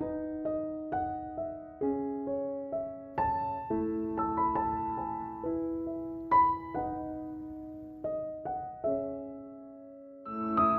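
Soft, slow solo piano music: single notes and gentle chords, each ringing out and fading, with a brief lull near the end before new chords begin.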